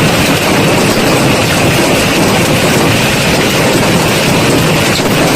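A loud, steady roar of storm noise with no clear individual impacts.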